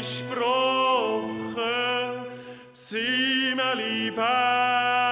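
A singer holding long, drawn-out notes of a Swiss German folk song over a steady low instrumental accompaniment, with a brief break for breath near the middle.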